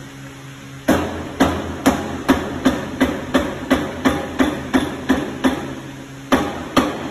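Rubber mallet striking the metal welding horn of an ultrasonic welding machine: a quick, even run of blows, about two to three a second, starting about a second in, then a short pause and more blows near the end. The horn is fitted very tight and is being knocked loose so it can be removed.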